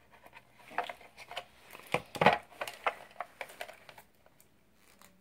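A plastic toy doll being handled and worked free of its packaging: a string of small clicks, taps and rustles, the loudest about two seconds in.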